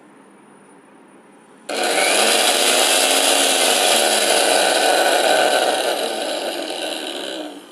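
Mixer grinder's universal motor, opened up and run straight off the mains with no jar, switched on at high speed: a loud steady whine with brush noise that starts abruptly, eases a little and cuts off. It is being run to find where the grinder's excess noise comes from.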